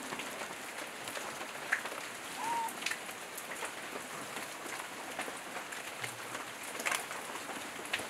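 Steady hiss of rain falling on forest foliage, with a few louder individual drops and a brief faint whistled note about two and a half seconds in.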